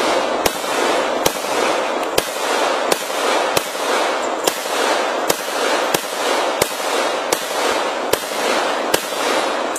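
Glock 21 Gen 4 .45 ACP pistol firing 230-grain factory rounds. About a dozen shots come at an even pace, roughly one every three-quarters of a second, and each rings on with a long echo.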